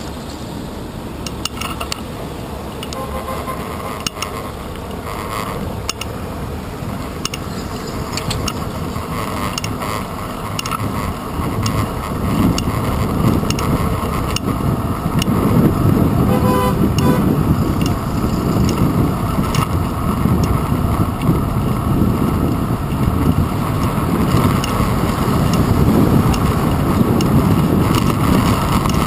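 City street traffic heard from a bicycle's handlebar camera, with a rumbling rush of wind and road noise that grows louder about halfway through as the bike picks up speed.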